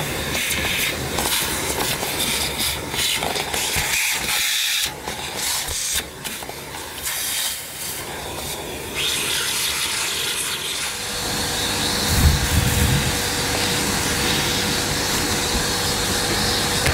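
A vacuum cleaner running as it sucks out dust and debris. Its note shifts several times, and a steady whine comes in after about 11 seconds.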